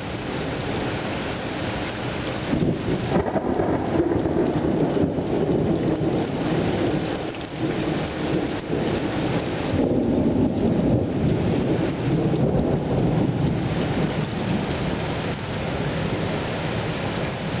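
Heavy rain pouring down steadily during a thunderstorm, with thunder rumbling twice: once starting about three seconds in and again about ten seconds in, each lasting a few seconds.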